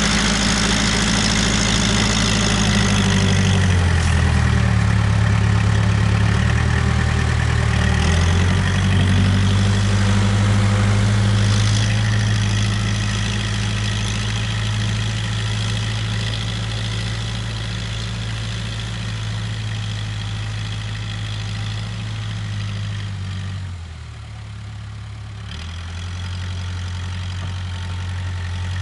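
Case 580K backhoe's diesel engine running while it works, its speed stepping up and down several times. About 24 seconds in it briefly drops lower and quieter, then picks back up.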